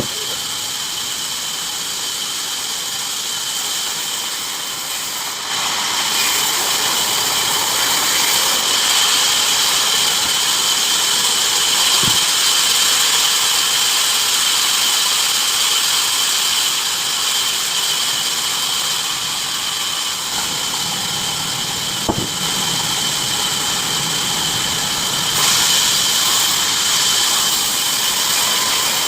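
Bandsaw mill running and cutting wood: a steady high whine over a constant hiss, getting louder about five seconds in, with a couple of short clicks.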